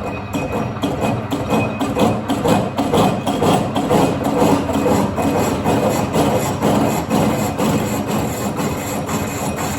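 A milling cutter taking a face cut across cast iron, with a rapid run of knocks and rattling over the motor's hum: cutter chatter from cutting too fast, which the machinist later says he cured with carbide tooling and slower speeds and feeds.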